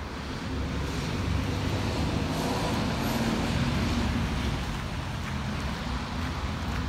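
Steady road traffic noise from cars on the street beside the park, with one vehicle's engine hum swelling around the middle.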